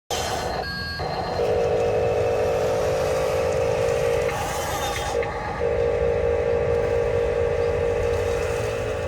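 Small electric motor and gearbox of an RC construction truck whining at a steady pitch, cutting out for about a second past the four-second mark and then running on, over a rough rumble.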